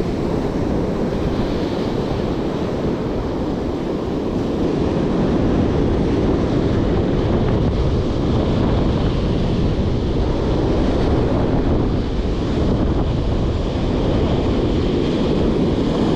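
Heavy surf breaking and washing up a sandy beach, with wind buffeting the microphone; a little louder about five seconds in.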